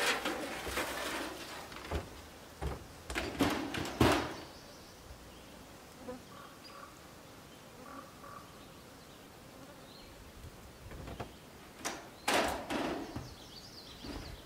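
Footsteps, knocks and rattles on a sheet-metal cabin roof and an aluminium extension ladder as a person climbs onto the roof and later steps back onto the ladder, the loudest knock about four seconds in. In the quiet stretch between, insects buzz faintly.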